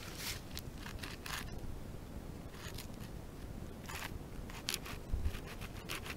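Saw teeth of a homemade knife made from a broken saw blade rasping through wood in short, uneven strokes, with a low thump about five seconds in.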